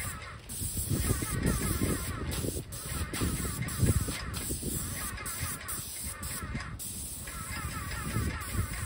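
Airless paint sprayer hissing as paint is sprayed onto wall shingles, in bursts with several short breaks where the trigger is let go.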